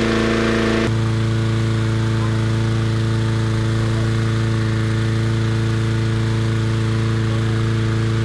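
Petrol-engined inflator fan running steadily, blowing air into a hot-air balloon envelope during cold inflation. Its tone changes abruptly about a second in, then holds steady.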